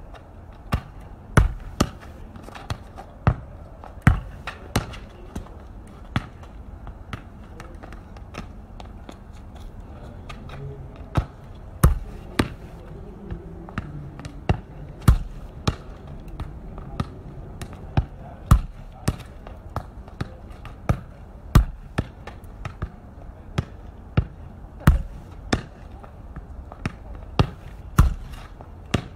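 A football being kicked hard against a solid surface, giving repeated sharp thuds at irregular intervals of about half a second to a second and a half.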